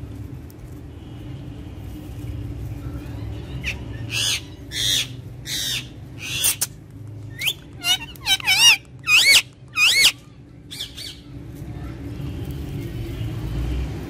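Rose-ringed (Indian ringneck) parakeet calling: a run of about a dozen loud, shrill squawks from about four seconds in to about eleven seconds in. The later calls waver up and down in pitch.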